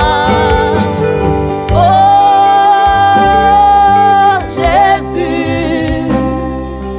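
Gospel worship song: a singer holds long notes with vibrato, the longest lasting a couple of seconds, over a band with electric bass and electric guitars.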